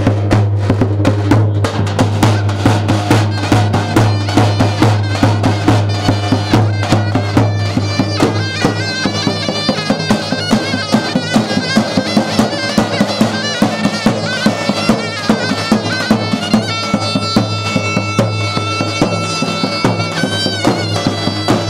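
Lively folk dance music: a shrill reed pipe plays a fast melody over a low steady drone and a steady drum beat.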